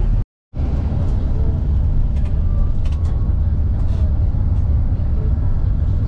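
Steady low rumble of a bus's engine and road noise heard from inside the moving bus. The sound cuts out completely for a moment just after the start, then resumes.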